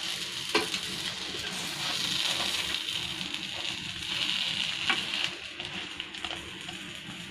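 Egg roll, a chapati on an omelette, sizzling steadily in butter and oil in a frying pan while a steel spatula presses it. Two sharp clicks of the spatula against the pan, about half a second in and again near five seconds.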